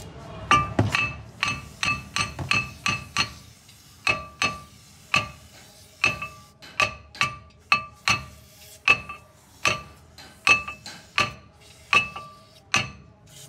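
Repeated hammer strikes on a car's brake disc and hub, one to three a second, each leaving a short bell-like metallic ring.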